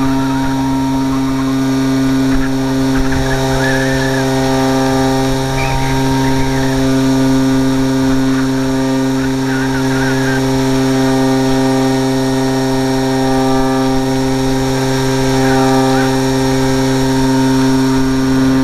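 Parkzone Radian's brushless electric motor and propeller running at a steady pitch, heard from a camera on board the plane, with wind noise underneath.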